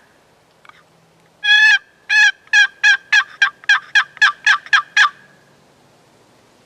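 Turkey call worked by hand, sounding a hen yelp series: about a dozen loud, two-tone notes over some four seconds, the first one longest and the rest coming at a steady, slightly quickening pace.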